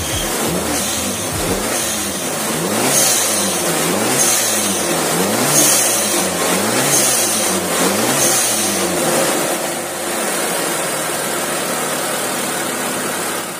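Mitsubishi 4G92 turbocharged inline-four engine being revved in repeated throttle blips, its pitch rising and falling about once every second and a bit.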